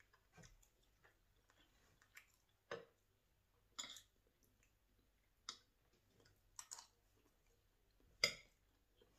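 Metal spoon and fork clicking and scraping against a ceramic plate of fried rice: a handful of short, light clicks spread out, the sharpest near the end.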